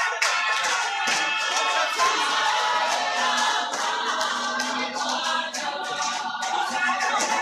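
Gospel choir singing together, with hand clapping keeping time.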